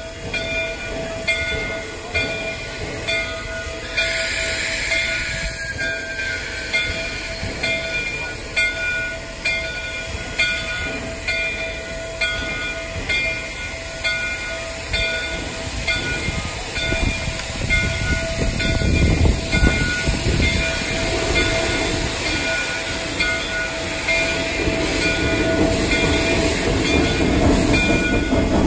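Shay geared steam locomotive ringing its bell in a steady, repeating rhythm, with a burst of steam hiss about four seconds in. From about halfway the locomotive starts to move, its exhaust and the steam venting from its open cylinder cocks growing louder toward the end.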